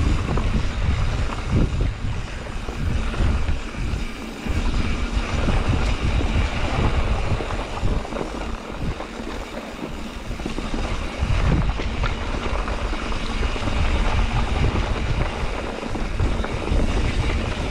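Mountain bike riding on a dirt trail: wind rushing over the camera microphone in a gusting low rumble, with the noise of the tyres and bike rolling over the ground.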